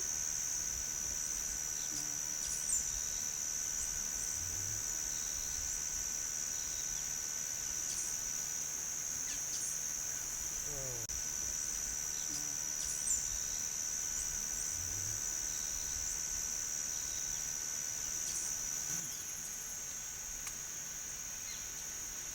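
Steady, high-pitched drone of an insect chorus in tropical forest, with a few faint, brief bird calls.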